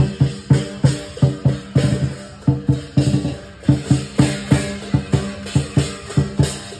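Lion dance percussion: a big lion drum beaten in a fast, steady rhythm with crashing hand cymbals, about four strikes a second.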